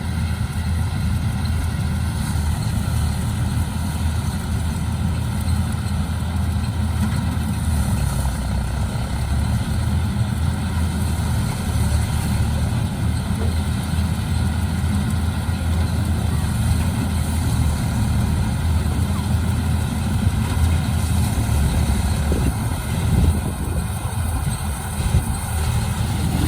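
Paddy harvesting machine running steadily as it works the rice field: a continuous low engine drone with steady machinery tones above it.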